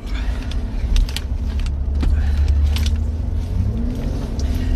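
Steady low rumble, as of a car engine running, with a low hum that rises slightly about three and a half seconds in and light clicks and rattles on top.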